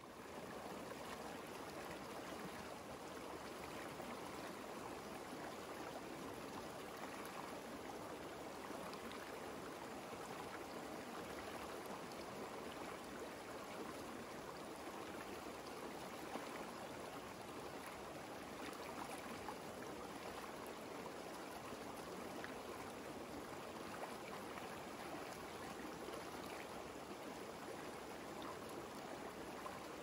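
River water flowing, a steady even rush that fades in over the first second.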